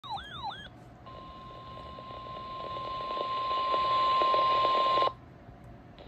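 A RadioShack NOAA weather radio sounding its alert: a brief warbling alarm, then the steady 1050 Hz NOAA Weather Radio warning tone, one high pitch growing louder for about four seconds before cutting off suddenly, signalling a severe thunderstorm warning.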